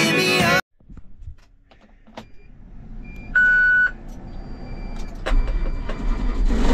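Background music cuts off half a second in. A vehicle's backup alarm sounds one steady half-second beep about three and a half seconds in, and an engine rumbles louder toward the end.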